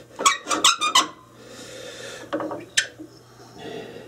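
Metal clanks on a wood lathe's tool rest as it is moved and repositioned: about five quick ringing knocks in the first second, then a few softer knocks near three seconds.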